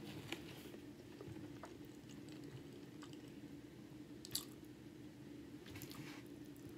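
Close-miked chewing of a chili cheese hot dog: soft, wet mouth sounds and faint ticks from chewing the bun and chili, with one sharp click a little over four seconds in, over a steady low hum.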